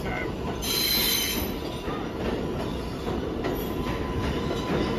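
New York City subway train on the IRT Lexington Avenue line running through the station, a steady rumble of wheels on rail with a brief high-pitched wheel squeal about a second in.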